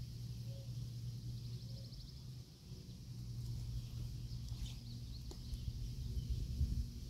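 Riverside outdoor ambience: a steady low rumble with a faint high hiss. A quick high bird trill comes about two seconds in, and a few faint bird chirps follow later.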